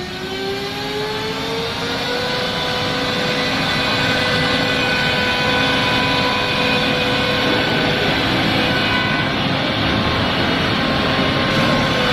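CNC router spindle spinning up, its whine rising in pitch over the first two seconds and then holding steady at full speed, over a steady rushing noise of the machine at work.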